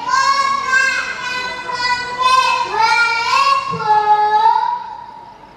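A young boy's voice reciting a Javanese geguritan poem in a sung, drawn-out chant, holding long notes that glide up and down, trailing off near the end.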